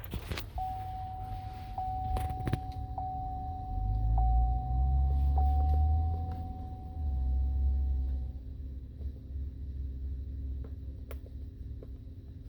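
Chevrolet Avalanche's warning chime sounding as the ignition is switched on: one steady tone with a faint tick about once a second, lasting about eight seconds. Underneath, the 5.3 L V8 starts and runs, a low rumble that swells about three and a half seconds in and settles near the end of the chime.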